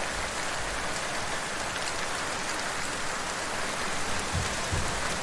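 Steady hiss of falling water.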